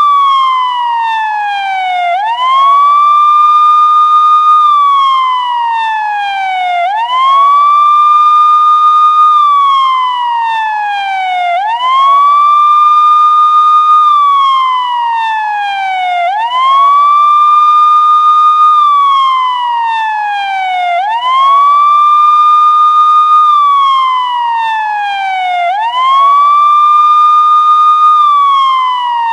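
Police siren wailing: a single tone climbs quickly, holds high for about two seconds, then slides slowly down, the cycle repeating about every five seconds.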